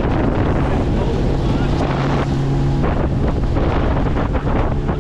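Bass boat running across a lake under outboard power: wind buffeting the microphone over the rush of water along the hull, with a steady engine hum underneath.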